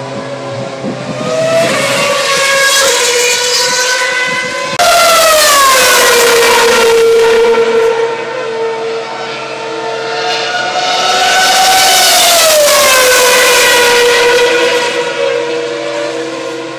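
2012 Formula 1 2.4-litre V8 engine note, high-pitched with a whistle-like whine. It climbs in pitch over the first seconds, jumps much louder about five seconds in and drops in pitch, then climbs again around ten seconds and falls back a few seconds before the end.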